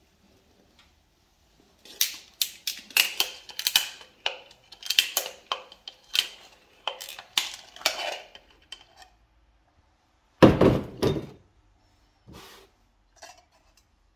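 Hand-turned oil filter cutter working around a used spin-on oil filter, cutting open the steel can: a quick run of metallic clicks and scrapes with a ringing edge. A loud knock comes about two-thirds of the way in, and two lighter knocks near the end.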